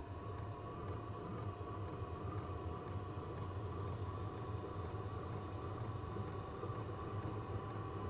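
Vevor diesel heater running on kerosene just after lighting. Its fuel dosing pump ticks at about two to three ticks a second, quickening slightly, over the steady hum of the combustion and warm-air blower fans.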